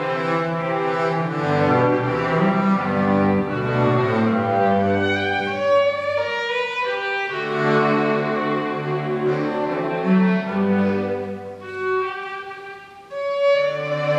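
Solo double bass with a string quartet of two violins, viola and cello, all bowed, playing a classical piece. Near the end the music thins and dies down briefly, then the strings come back in.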